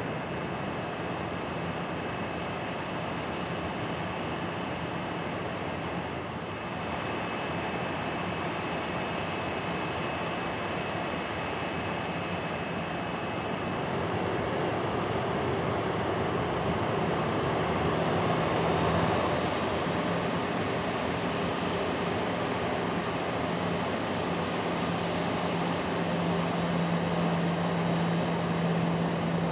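Boeing 737-800's CFM56-7B turbofan engines running at taxi power: a steady rushing noise with a thin high whine over it. It grows louder about halfway through as the airliner taxis closer.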